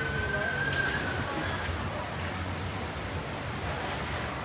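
Steady outdoor harbourside background noise: a low hum and rumble with faint distant voices, and a brief thin high tone in the first second.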